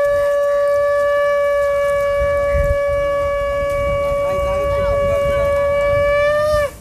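Conch shell (shankha) blown in one long steady note, bending up slightly just before it stops near the end. Faint voices murmur underneath.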